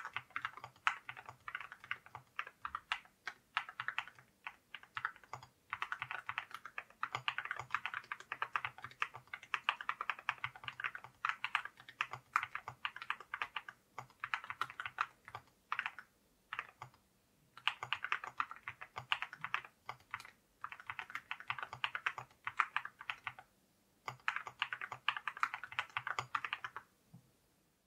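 Fast typing on a JRIS 65 mechanical keyboard fitted with ceramic keycaps, a rapid clatter of keystrokes in runs of a few seconds with short pauses between them, stopping near the end.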